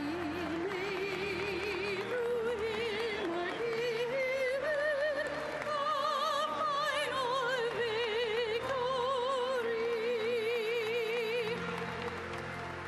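A solo singer in a classical, operatic style with a wide vibrato, holding long notes over low sustained accompaniment. The melody climbs through the first half and ends on a long held note shortly before the end.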